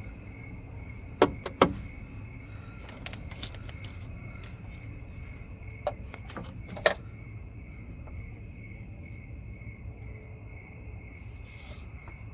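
Steady low room hum with a faint high whine, broken by a few sharp clicks or knocks: two close together about a second in and two more around six and seven seconds.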